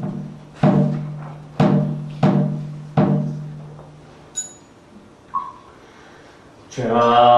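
Buddhist ritual percussion: a resonant struck instrument hit four times at slowing intervals, each stroke ringing out, followed by two short light taps. Near the end a group of voices begins chanting.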